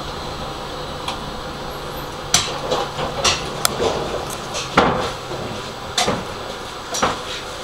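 Tram standing at a stop, its equipment giving a steady hum, with a series of sharp clicks and knocks at uneven spacing starting about two seconds in.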